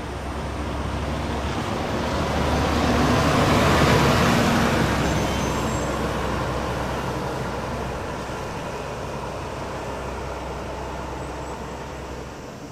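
Diesel city bus driving past: its engine and tyres grow louder as it approaches, are loudest about four seconds in, then fade as it pulls away, over a steady low engine hum.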